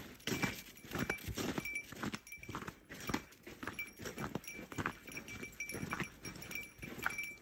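Footsteps of a hiker walking on snowy ground at about two steps a second, each step with a faint small metallic ring.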